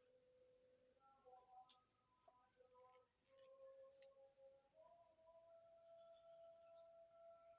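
Steady high-pitched chirring of insects, with a faint melody of held notes underneath.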